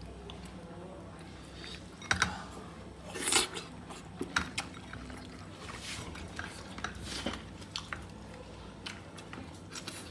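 Eating and food-handling sounds: wet chewing with scattered clicks and knocks of dishes and utensils, the loudest knocks about two and three seconds in.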